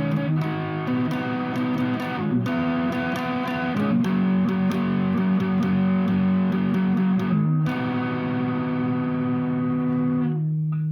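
Guitar playing the instrumental ending of a song: held chords that change twice, the last one dying away shortly before the end.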